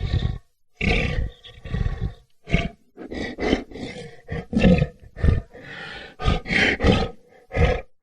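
Lion roar sound effect: a quick series of about a dozen short, rough roars and growls in close succession, cutting off abruptly near the end.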